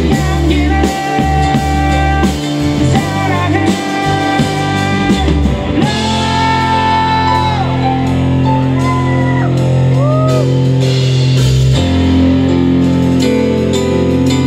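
Rock band music: electric guitar, bass and drums, with a long held, wavering note and sliding notes about halfway through.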